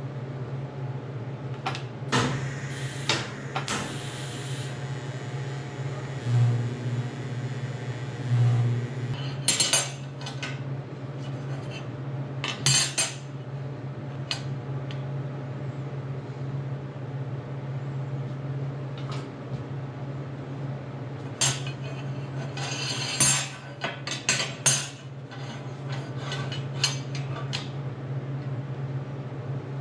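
Stainless steel tubes and a locking clamp clinking and clanking against a steel welding table as a frame is set up, in scattered bursts over a steady low hum.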